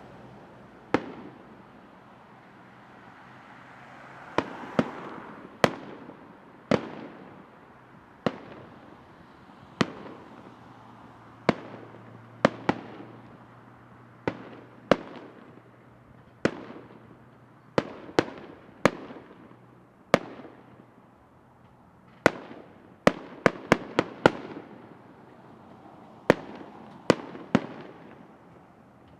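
Fireworks display: a series of sharp aerial shell bangs, one every second or two, with quick runs of several bangs in a row about two-thirds and four-fifths of the way through.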